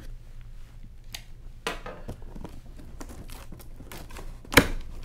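Packing tape being slit on a cardboard box and the box top pulled open: scattered light scrapes and rustles of cardboard, then one loud sharp snap about four and a half seconds in.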